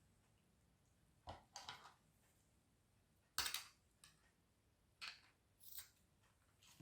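A handful of short clicks and scrapes from small parts being handled and fitted by hand, against near silence; the sharpest and loudest comes about three and a half seconds in.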